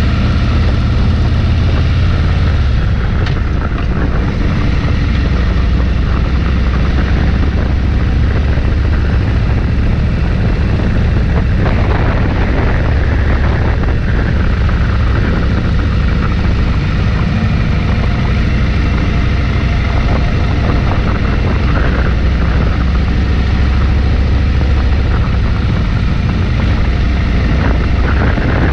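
Bagger motorcycle's engine running at a steady cruise, a loud low drone with a rushing haze over it. The engine note shifts lower about three seconds in.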